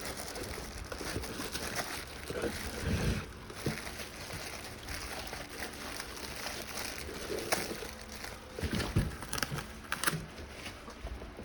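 Packaging rustling and crinkling as a new vise is unwrapped by hand, with a few light knocks.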